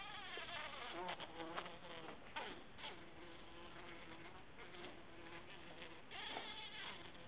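Bumblebee buzzing steadily, its hum wavering and swooping in pitch as it flies close by, with a few short clicks about a second in.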